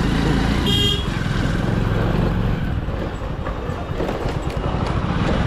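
Hero Splendor Plus's single-cylinder four-stroke engine running at low speed as the motorcycle rolls slowly, with a short horn beep about a second in.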